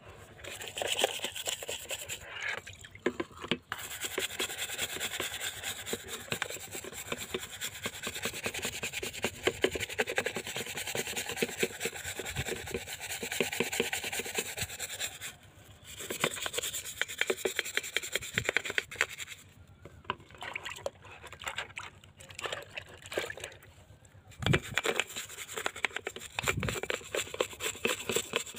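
Hand scrub brush with stiff bristles scrubbing a rusty cast-metal motorcycle pedal wet with water, in rapid back-and-forth strokes. The scrubbing stops briefly about 15 seconds in, then goes quieter and patchier for a few seconds before picking up again.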